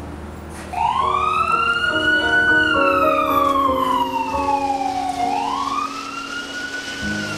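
Emergency vehicle siren wailing, coming in about a second in, with slow rising and falling sweeps: two rises, each followed by a long fall. Soft piano notes play underneath.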